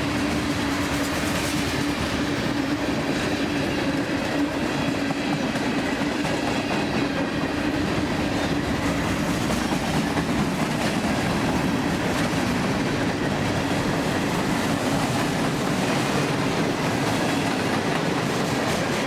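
A CSX freight train of mostly empty coal and grain cars rolling past close by: a steady rumble of wheels on rail with a clickety-clack over the joints. A steady low tone runs under the noise and fades out about two-thirds of the way through.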